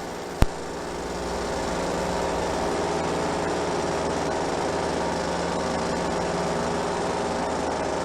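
Paramotor engine running steadily, its note building up over the first couple of seconds and then holding. There is a sharp click about half a second in.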